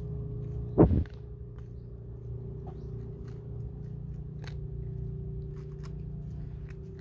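Cats eating, with scattered sharp crunching clicks over a steady low hum, and one short louder sound about a second in.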